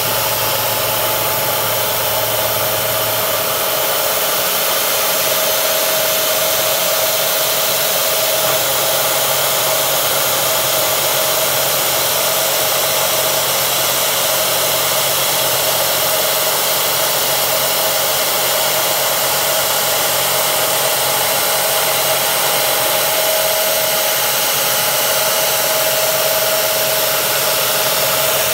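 Mist coolant hissing steadily while a Bridgeport milling machine takes a heavy cut with a half-inch three-flute carbide end mill, with a steady whine held throughout.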